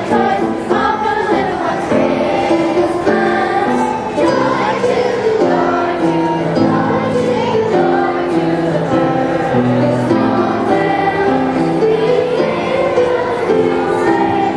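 A children's choir singing a song together in sustained, held notes.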